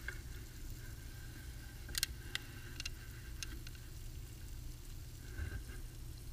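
Rust-removal electrolysis bath fizzing: gas bubbles rising and popping in foamy electrolyte, giving a faint crackle with a few sharp pops about two to three and a half seconds in. A steady low hum runs underneath.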